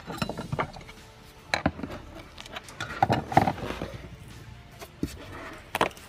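Irregular clicks, knocks and scraping of hard plastic as a gloved hand presses and works the round black fuel pump access cover loose, over background music.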